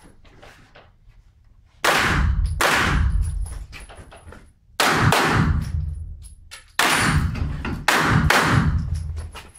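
Luvo LA-15 9x19 mm low-velocity rifle fired about five times at irregular intervals, roughly 1 to 2 s apart, the first two close together. Each shot echoes and fades in a large indoor range hall.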